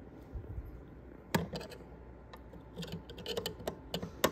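Screwdriver tip clicking and tapping against the plastic housing of a System Sensor SpectrAlert Classic fire alarm horn strobe. There is a sharp click about a second and a half in, a run of light clicks, and another sharp click near the end.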